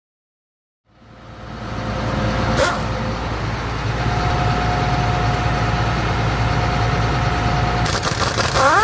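Pneumatic hand tool on an air hose running with a steady whine over a steady low mechanical hum. The sound fades in about a second in, with a sharp click a little later and the whine holding through the middle several seconds.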